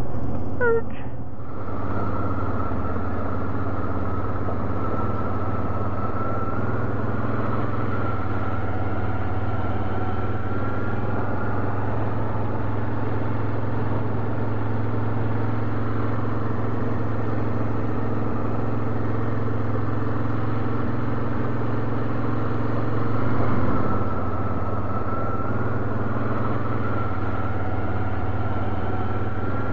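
ATV engine running steadily at low speed, with a brief swell in level about 23 seconds in.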